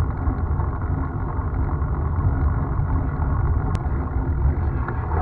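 Steady, loud wind rumble buffeting the microphone of a camera moving along a road.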